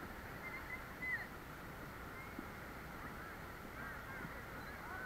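Many short bird calls, overlapping and scattered throughout, over a steady low rush.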